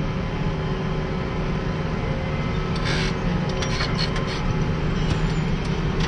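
Tractor engine running steadily under load while pulling a reversible plough, heard from inside the cab, with a few short clicks or rattles around the middle.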